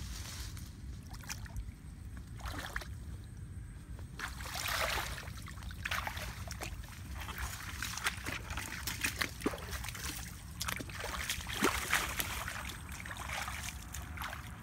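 Feet wading through shallow, muddy ditch water in irregular splashing bursts, with leafy branches rustling against the legs.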